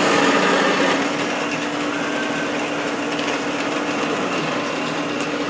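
Shop machinery running with a steady hum and an even whirring noise.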